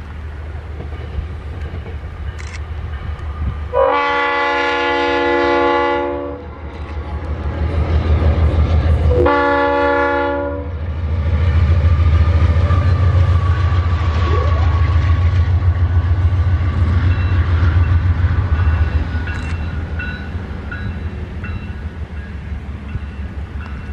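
GE Dash-9 diesel-electric locomotive running light through a level crossing: two long blasts of its multi-tone air horn, the first about two and a half seconds, the second about a second and a half, sounded for the crossing. The diesel engine's deep rumble runs underneath, swelling as the locomotive passes and easing off near the end.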